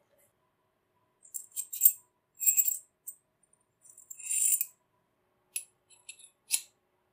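A handful of old steel hammer-drill bits clinking together in three short jingling bursts, then a few sharp metal clicks as a bit is pushed into the tool holder's taper, the last click the heaviest.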